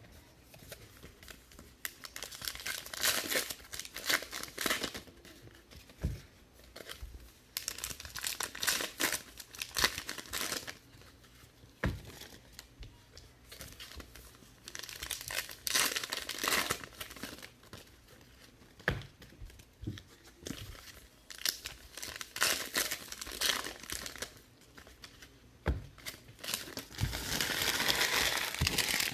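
Foil trading-card pack wrappers being torn open and crinkled by hand, in repeated bursts, with a few soft knocks from cards and packs being set down; the crinkling grows longer and louder near the end.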